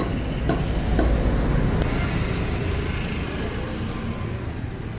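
Street traffic: a motor vehicle's steady low rumble, with a couple of faint knocks in the first second.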